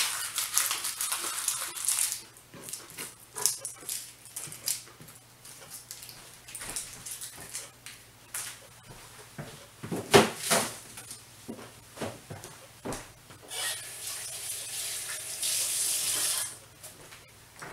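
Kitchen handling noises: rustling and clattering as onion scraps are cleared away, with scattered clicks. There is a loud knock about ten seconds in, another just after, and stretches of hissing noise at the start and near the end.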